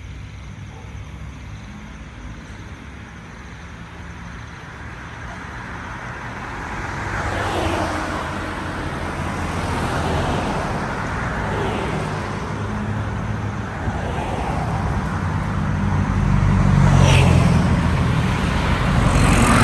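Motor vehicle engine running with road traffic noise, swelling as vehicles pass several times, loudest near the end.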